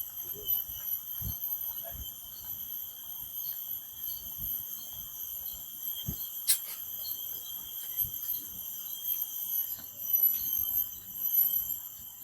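Crickets chirping: a steady, high trill chorus with short chirps repeating over it. A single sharp click cuts across about six and a half seconds in.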